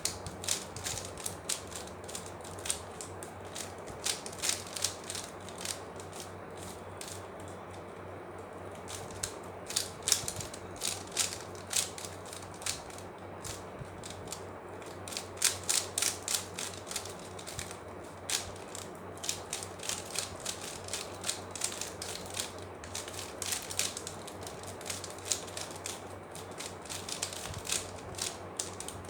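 Plastic 3x3 Rubik's cube clicking and clacking as its layers are turned in quick runs of moves, with short pauses between runs.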